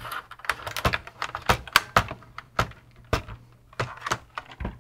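Irregular sharp clicks and knocks from the plastic case of a TRS-80 Model 100 as its halves are squeezed and worked by hand to free the snap tabs, about a dozen in all.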